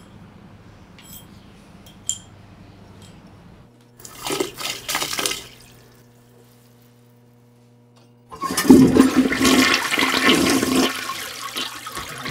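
Toilet flushing: a loud rush of water that starts suddenly about eight seconds in and tails off near the end. Before it there are faint light clicks and a brief noisy burst about four seconds in.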